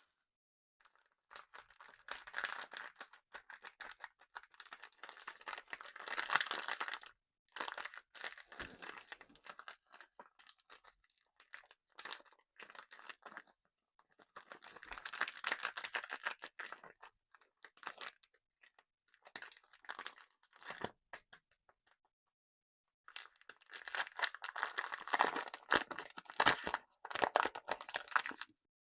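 Candy crunching and crinkling close to the microphone: dense crackling in bursts of a few seconds with short pauses between, and a longer pause about three quarters of the way through.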